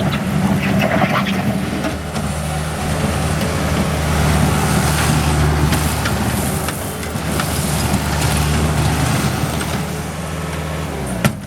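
Diesel engine of a Bobcat T-180 skid steer running steadily, with a few short clicks over it.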